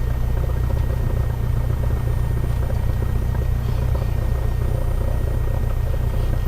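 Cessna 172's piston engine and propeller running steadily at low power, heard from inside the cockpit, with a deep, even drone.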